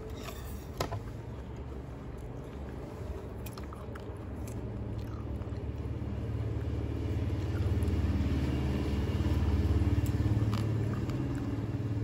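A motor vehicle going past: a low engine rumble that builds from about four seconds in and is loudest near the end. Over it come small clicks and smacks of a macaque chewing pieces of mango.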